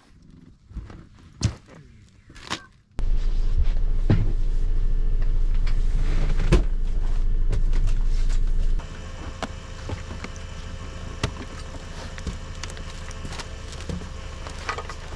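A few scattered clicks and knocks. About three seconds in, a hovercraft's engine comes in, running steadily with a low hum. It drops to a lower level about nine seconds in, with occasional thumps of footsteps and a door as people move about the craft.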